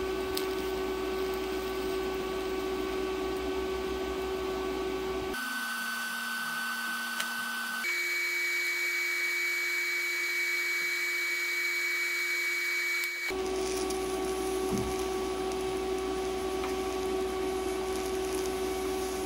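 TIG welding arc from an Everlast 160STH welder running beads on steel angle iron: a steady hiss with a constant humming tone. The pitch of the tone jumps abruptly three times, about five, eight and thirteen seconds in.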